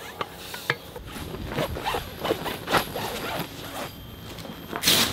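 Scattered clicks and handling rustles on canvas, then a quick zipper pull on the tent's door flap near the end, the loudest sound.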